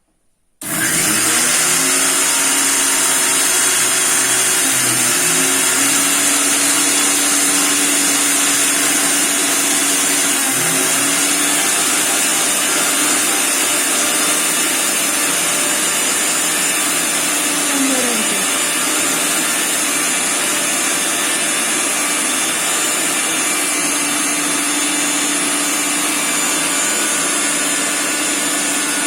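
Sujatha Dynamix mixer grinder's motor switched on about half a second in and running steadily at speed, with a high whine and small shifts in pitch. It is dry-grinding a charge of dried fennel seeds in the dry-grinding jar.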